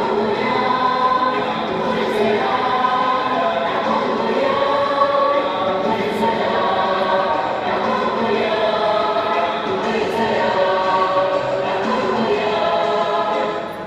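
A choir singing in long, held notes, dying away at the very end.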